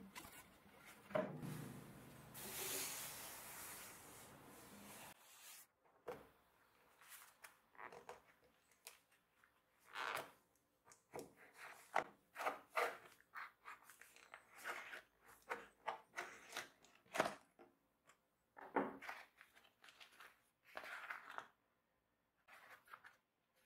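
Hand-tool work on an old leather-topped wooden stool seat. First comes a few seconds of steady scraping rustle, then a run of short clicks, taps and scrapes as a tool pries at the edge of the old leather cover and the leather is peeled off and handled.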